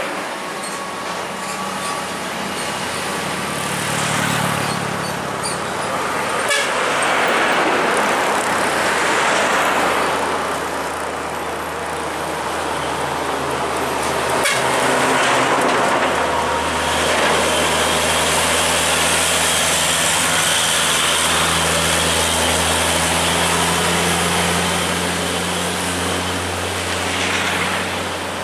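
Heavy diesel trucks driving past on a highway, engines running with tyre and road noise, louder in the second half. A horn toots briefly a couple of times.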